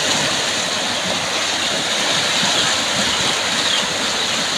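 Fast, turbulent floodwater rushing and churning past the bank: a steady, dense rush of water.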